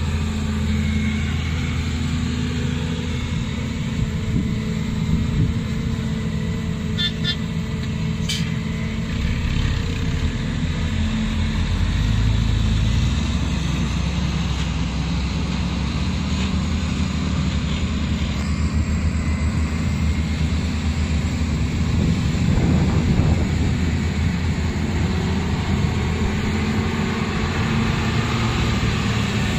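Heavy diesel engines of ten-wheel dump trucks and a crawler excavator running steadily, as a loaded truck pulls away and another drives up. A few brief high beeps about seven to eight seconds in.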